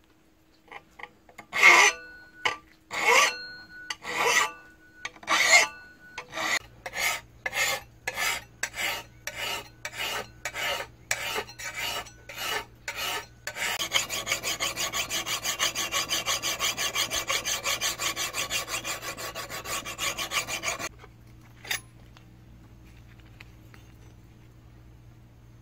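Hand file scraping the edge of a steel axe head cut from a circular saw blade, shaping and sharpening it. Slow single strokes at first, then about two a second, then a quick run of about five strokes a second for several seconds that stops suddenly, with one last stroke after.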